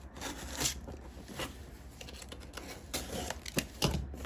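Cardboard shipping box being handled and opened by hand: soft scraping and rustling of cardboard, with a few sharp taps near the end.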